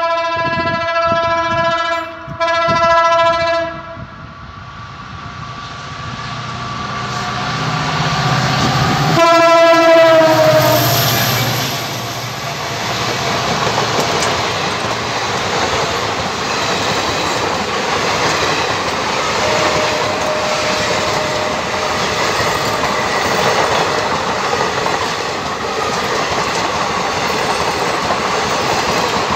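Passenger train locomotive horn sounding two blasts with a brief break. The train's noise then swells as it approaches, and a second horn blast drops in pitch as the locomotive passes, about nine seconds in. After that comes the steady rumble and clickety-clack of the coaches running past.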